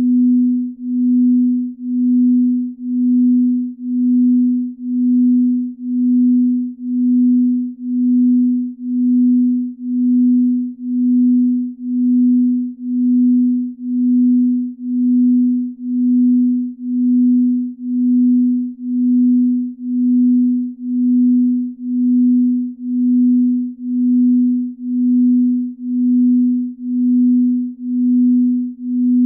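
Binaural-beat sleep tone: a single low, pure tone that swells and fades evenly about once a second.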